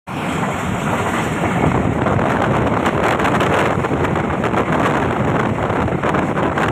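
Air rushing past a fast-moving train, a loud steady roar of wind buffeting the microphone.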